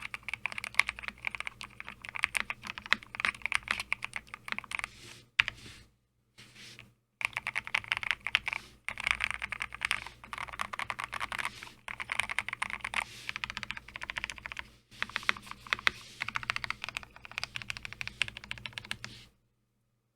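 Fast typing on a DIY mechanical keyboard with a Lego-brick case and hand-lubed Glorious Lynx linear switches: a dense run of keystroke clacks. It breaks off for about a second and a half some five seconds in, pauses briefly a few more times, and stops shortly before the end.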